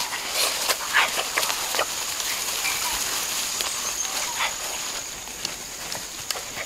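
Rustling and crackling of grass and leaves underfoot as someone walks through vegetation, with scattered sharp crackles and a steady high whine running through most of it.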